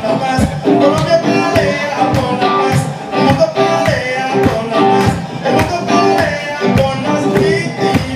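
Live music led by an archtop guitar strummed in a steady rhythm.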